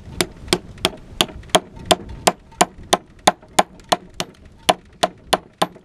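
Hammer driving a steel chisel into rock, about eighteen quick, evenly spaced ringing strikes, about three a second, chipping pieces off the stone; the blows stop just before the end.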